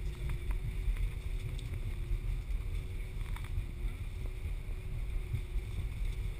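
Airbus A319 cabin noise while rolling along the runway after landing: a steady low rumble from the wheels and airframe, with a steady engine hum and whine over it and a few faint ticks.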